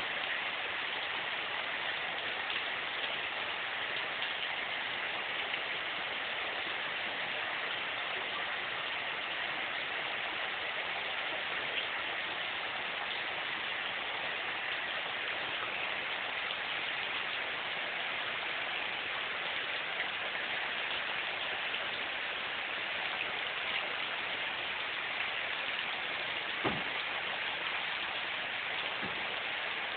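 Heavy rain falling steadily in an even, unbroken hiss. A single brief knock sounds near the end.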